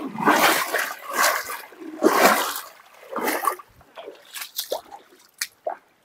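Shallow river water splashing and sloshing in irregular bursts, loudest in the first three and a half seconds, then thinning to scattered short wet slaps and clicks.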